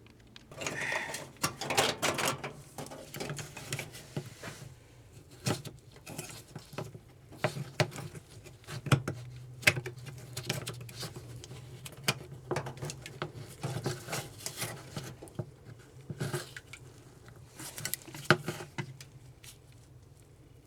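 Irregular clicks, taps and rattles of hands working loose a Kenmore top-loading washing machine's lid switch and the parts around it, with a faint steady low hum underneath.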